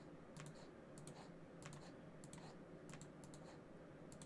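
Faint computer keyboard and mouse clicks, irregular and often in pairs, a few a second, over a low steady hum.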